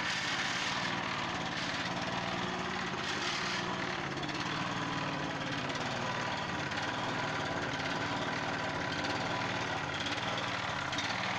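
Small gasoline engine of a rooftop construction hoist winch running steadily at a constant speed, driving the winch as it hoists a load.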